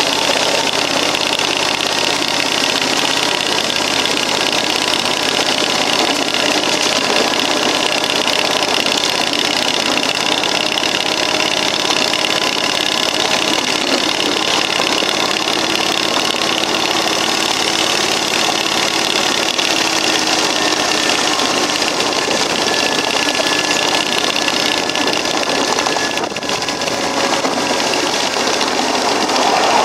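A 16 horsepower Briggs & Stratton industrial V-twin petrol engine, the prime mover of a ride-on scale EMD F7 locomotive, running steadily while the train is under way. It dips briefly near the end, then grows louder.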